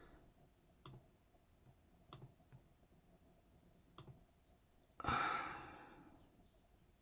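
A few faint clicks, typical of a computer mouse, then about five seconds in a sharp, loud breath out, a sigh, that fades over about a second.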